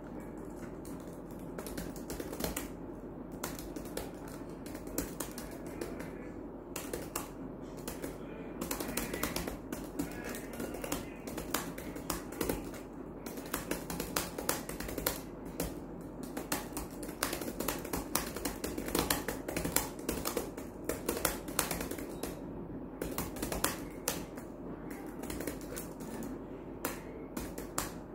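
Fast typing on a Dell laptop keyboard: a steady stream of uneven key clicks with a few brief pauses, over background music.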